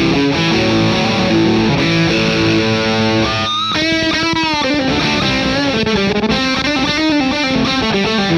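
Electric guitar with high-gain distortion, sent over a wireless transmitter to the amp, playing held chords. From about three and a half seconds in it switches to a lead line with wide string bends and vibrato, then goes back to chords.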